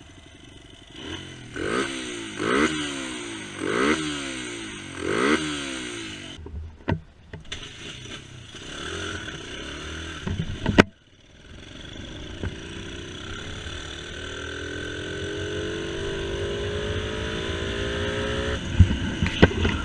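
Honda XR100's air-cooled single-cylinder four-stroke engine revved in four quick blips, its new cold air intake loudly sucking in air. After a sharp click near the middle, the engine runs with a slow, steady climb in pitch that drops off near the end.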